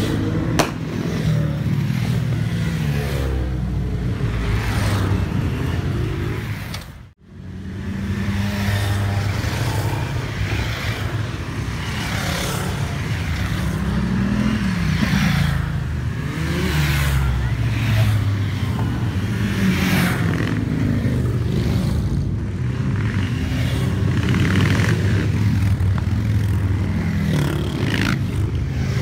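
A procession of motorcycles riding past one after another, engines running steadily, each one's pitch rising and falling as it goes by. The sound cuts out for a moment about seven seconds in.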